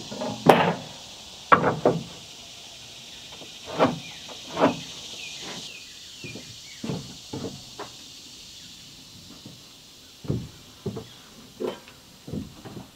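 Irregular wooden knocks and thumps from handling lumber and tools and from footsteps on a wooden plank deck, about a dozen spread through, over a steady high buzz of insects.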